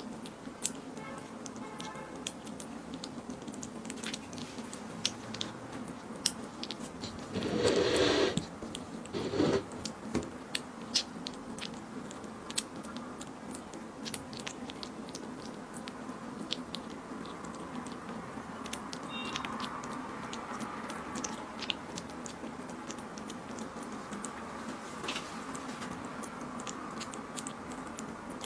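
A kitten chewing and licking at a chunk of food, close up: many small wet clicks and smacks. A louder sound of about a second comes about eight seconds in, with a shorter one just after.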